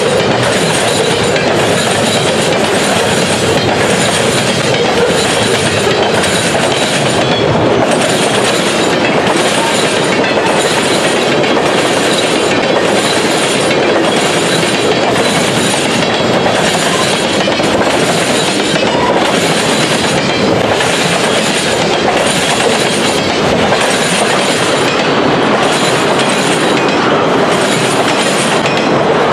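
Cars of a mixed freight train rolling past close by: a loud, steady clatter of steel wheels on the rails with a regular clickety-clack as the cars go by.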